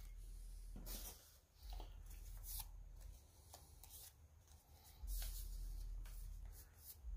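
Faint handling noise of hands working on a subwoofer's parts while centering the voice coil: light rustling, scraping and small clicks at irregular moments.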